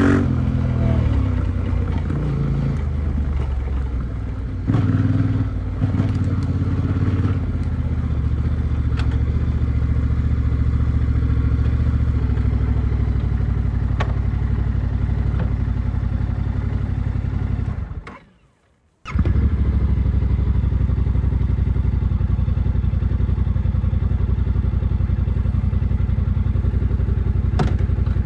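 Yamaha Ténéré 700's parallel-twin engine through an Akrapovič exhaust, running at low, fairly steady revs with scattered clicks and clatter. Revs fall away at the start, and the sound cuts out for about a second two-thirds of the way through before returning.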